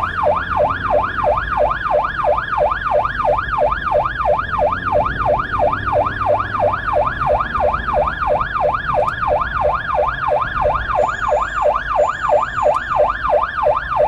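Electronic yelp siren on an emergency blood-transport car, sweeping rapidly up and down in pitch about three times a second, heard from inside the car over low engine and road noise.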